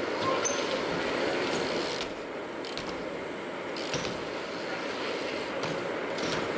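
BMX bike coasting, its rear hub's freewheel ratchet clicking rapidly, with tyres rolling on the ramps.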